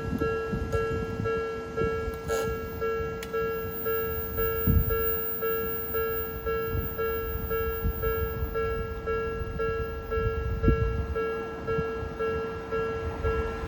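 Japanese railway level-crossing alarm ringing its repeated electronic bell tone, evenly a few times a second, over a low rumble with occasional thumps.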